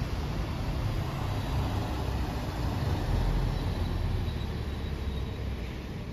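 A large road vehicle passing, its low engine rumble swelling to its loudest about three seconds in and easing off near the end.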